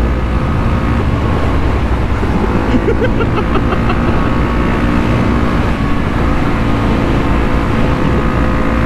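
Honda CRF250L dual-sport motorcycle cruising at steady road speed, its engine drone mixed with heavy wind noise on the microphone.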